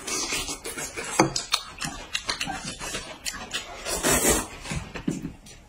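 Noodles in broth being slurped and eaten, with short clicks of chopsticks and bowls; a longer slurp about four seconds in.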